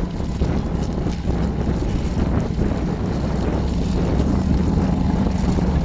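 Formula Offroad buggy's engine running steadily at low revs, a low drone, while the car sits stuck partway up a steep gravel hill climb.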